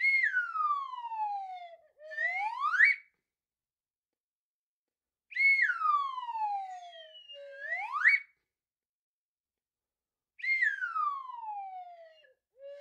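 Toy whistle blown three times, each a long falling glide in pitch followed by a quicker rise back up, with silent pauses between.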